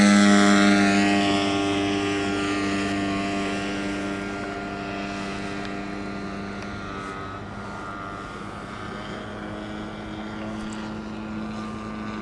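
Engine and propeller of a radio-controlled scale model P-51D Mustang running at full power as it lifts off. Its steady note is loudest as it passes close at the start, then fades over the next few seconds as the model climbs away.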